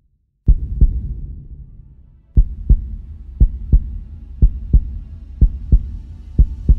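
Heartbeat sound effect: low double thumps (lub-dub). One pair comes about half a second in, then after a pause a steady beat of about one pair a second from about two and a half seconds in.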